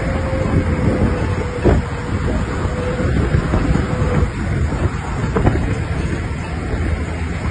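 Off-road vehicle driving over rough ground: a steady low rumble with wind on the microphone, a faint whine that fades out a little past halfway, and two sharp knocks, one about two seconds in and one near three-quarters through.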